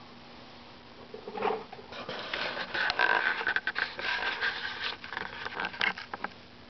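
Handling noise: a run of scrapes, scuffs and small clicks lasting about five seconds, starting about a second in and stopping shortly before the end.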